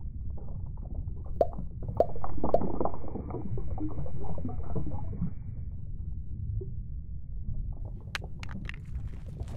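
Underwater water sound effects: a steady low rumble, with a louder stretch of bubbling from about two seconds in to past five seconds, and scattered sharp drips and clicks near the end.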